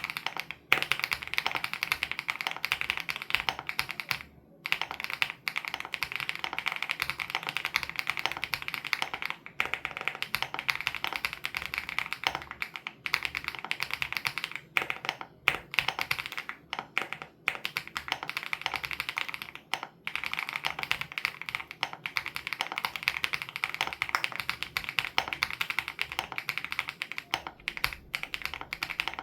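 Fast, continuous typing on a WOB Crush 80 Reboot mechanical keyboard with Hyacinth switches: a dense stream of key clicks, broken by a few short pauses.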